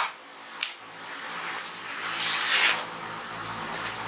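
Laptop box and its packaging being handled as it is opened: a couple of sharp clicks, then a stretch of rustling and scraping about two seconds in, with a few more light clicks near the end.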